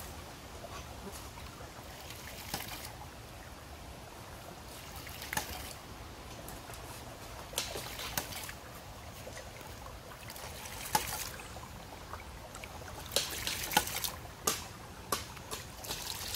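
A homemade hydraulic ram pump running beside a creek: steady trickling and splashing water, with sharp clacks at irregular intervals, several close together near the end, as the pump cycles. It is building delivery pressure toward about 4 bar.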